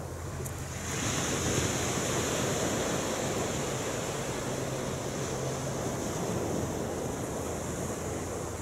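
Surf breaking and washing up a shingle beach: a rushing, hissing wash that swells in about a second in and carries on for several seconds.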